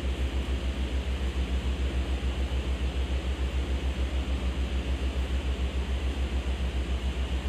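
Steady low hum from a running fan that pulses evenly about six times a second, with an even hiss of moving air above it.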